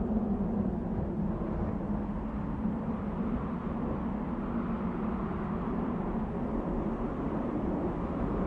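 Desert wind blowing steadily, a low rushing noise with a steady low moan running through it.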